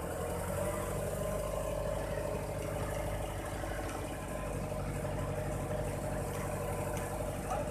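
Boom truck's engine running steadily under load as the crane works, with a steady whine over the engine drone; the engine note steps up just as it starts.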